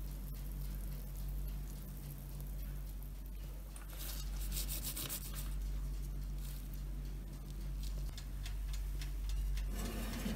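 Soft scraping and rubbing from handling the batter bowl and glass baking dish, loudest for a second or so about four seconds in, with a few faint ticks over a steady low hum.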